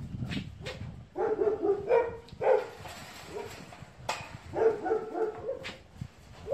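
A dog barking in two bouts of a few short barks, the first about a second in and the second around the fifth second.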